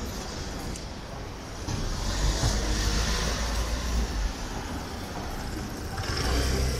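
Cars passing on a city street, with tyre and engine noise swelling about two seconds in and again near the end.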